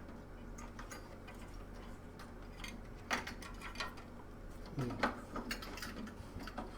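A few small sharp clicks and taps, scattered through the second half, as the metal retention clip of an AMD stock CPU cooler is worked over the plastic hooks of the socket bracket. A faint steady hum sits under them.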